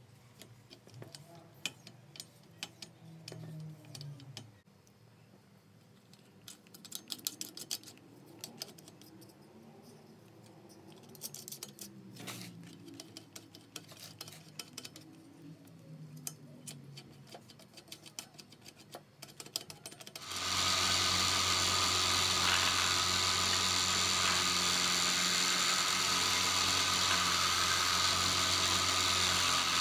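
Scattered clicks and knocks of handling parts, then about twenty seconds in an electric power tool's motor starts abruptly and runs loudly and steadily.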